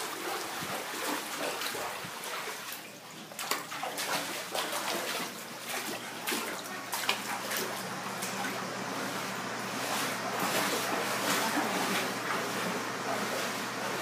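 Floodwater running and splashing indoors, a steady rush broken by many irregular splashes.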